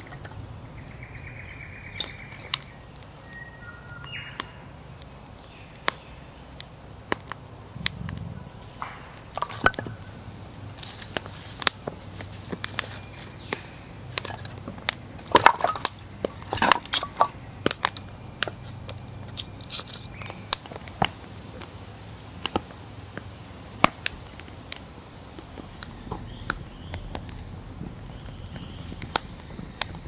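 Irregular sharp clicks and knocks of hands-on camp work, with a dense run of louder knocks about halfway through. A few short bird calls sound in the first few seconds.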